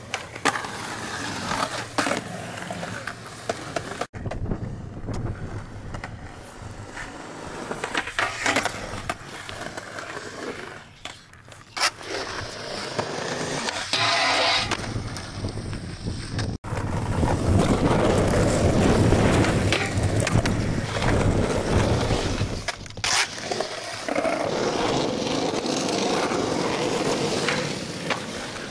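Skateboard wheels rolling on a concrete skatepark, with sharp clacks of the board popping and landing, across several cut-together clips. About fourteen seconds in, the board slides along a metal flat bar for about a second with a bright scraping grind.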